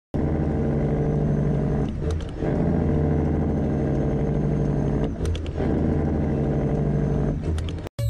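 Heavy truck diesel engine running hard and steady, with three brief dips where the pitch drops and climbs again, about two, five and seven and a half seconds in. It cuts off abruptly at the end.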